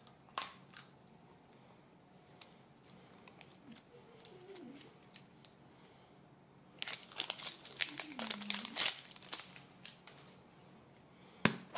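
A printed wrapper being peeled by hand off a plastic surprise egg, crinkling densely for about two seconds after light handling clicks. Near the end comes a sharp snap as the plastic capsule is popped open.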